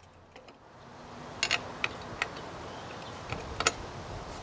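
A few light metallic clicks and clinks as a steel cutting blade is seated into the blade holder under a Honda HRC215 lawnmower's deck, over a steady background hiss that comes up about a second in.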